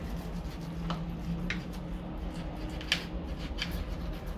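Kitchen knife slicing through dried salted beef on a plastic cutting board, with a few light clicks of the blade against the board. A steady low hum runs underneath.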